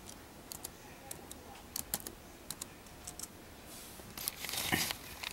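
Computer keyboard keystrokes, a dozen or so scattered clicks as a track name is typed in. Near the end, a louder brief rush of hissing noise.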